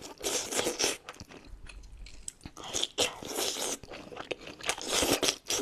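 Crunchy biting and chewing of seafood-boil food, in a few crackly bursts: at the start, about three seconds in, and again near the end.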